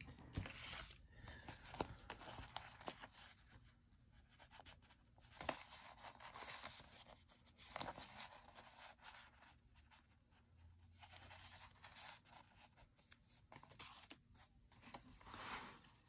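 Faint rustling and scraping of paper as a planner page and a sheet of stickers are handled, with scattered small taps and clicks.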